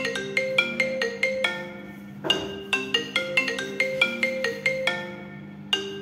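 iPhone ringtone ringing for an incoming call: quick marimba-like mallet notes over a held low tone. The phrase starts over about every three and a half seconds.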